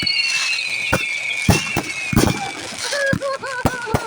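Fireworks going off: sharp bangs at irregular intervals, with a high whistling tone gliding slowly downward through the first half. A person's voice calls out near the end.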